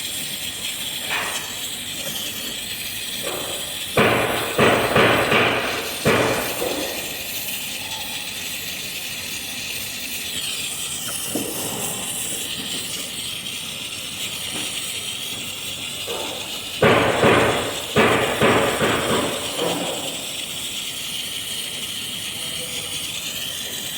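Brazing torch hissing steadily, with two bursts of several sharp metal knocks, about four seconds in and again past the middle.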